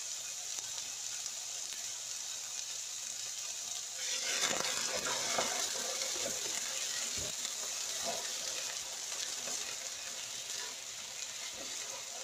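Eggplant and lemon basil sizzling steadily in a wok over a gas flame. From about four seconds in, the vegetables are stirred, adding louder scraping and knocks against the wok.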